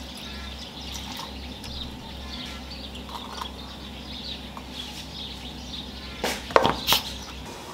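Kitchen handling over a low steady hum: faint small clinks, then two sharp knocks about half a second apart near the end.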